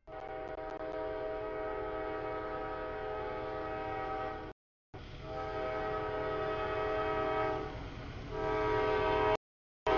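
CSX freight locomotive's multi-note air horn blowing long blasts for a grade crossing as the train approaches, growing louder near the end. The sound breaks off abruptly into dead silence twice, about halfway through and near the end.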